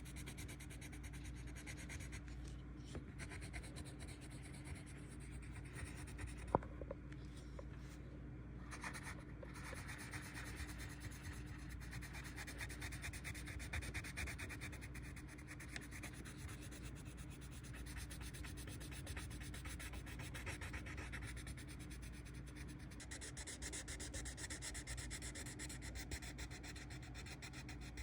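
Colored pencil shading on paper: continuous scratchy back-and-forth strokes that rise and fall in strength, with one sharp click about six and a half seconds in.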